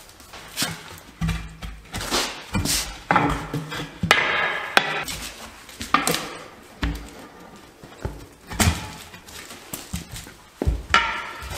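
Steel tire irons knocking and scraping against a steel truck wheel rim while a truck tire is pried off by hand: irregular metallic clanks about once a second, some of them ringing.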